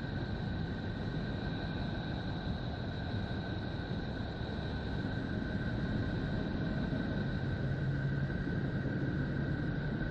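Spacecraft recording of a planet's magnetic field turned into sound: a steady rushing hiss with two steady high whistling tones on top, with a faint low hum coming in near the end.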